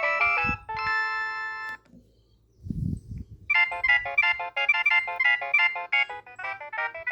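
Nokia 3120 mobile phone playing its ringtones through its loudspeaker. One tune ends on a held chord, then comes a short pause with a low bump. About three and a half seconds in, the next tune starts: a quick run of short, bright electronic notes.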